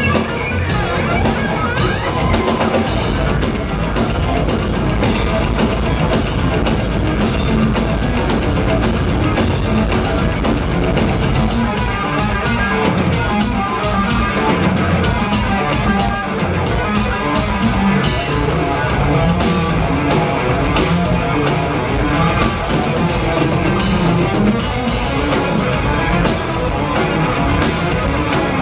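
A live progressive metal band playing loudly, with drum kit, electric bass, keyboards and double-neck electric guitar, heard from the audience.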